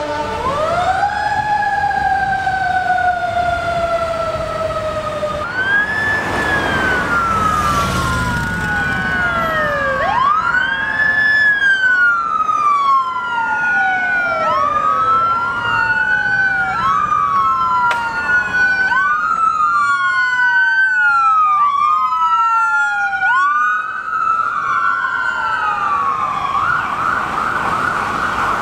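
Several electronic emergency-vehicle sirens wailing at once, their rising and falling sweeps overlapping out of step. There is a rush of noise about eight seconds in, and near the end one siren switches to a rapid yelp.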